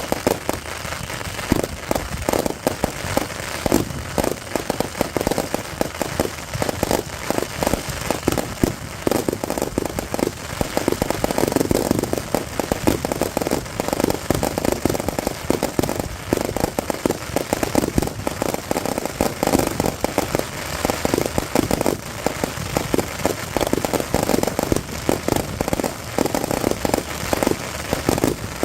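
Fireworks crackling and popping in a rapid, unbroken stream of small cracks.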